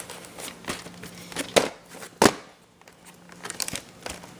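Plastic VHS tape case being handled and opened: scattered sharp plastic clicks and knocks with light crinkling, the loudest a little over two seconds in.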